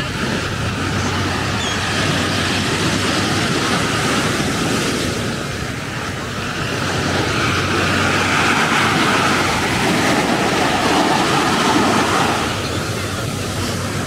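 Ocean surf breaking and washing up on the beach: a steady rushing wash that swells and eases, loudest about eight to twelve seconds in, with a faint low steady hum underneath.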